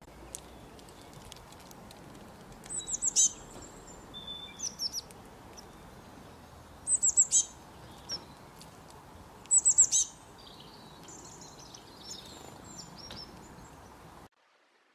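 Small birds singing: three loud bursts of quick, high, falling notes a few seconds apart, with softer chirps between them, over a steady hiss. The sound cuts off suddenly shortly before the end.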